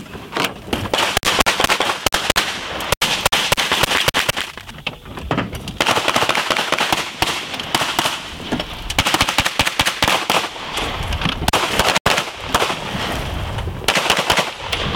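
Handgun fire in rapid strings of shots, nearly continuous, with two abrupt momentary breaks, about three and twelve seconds in.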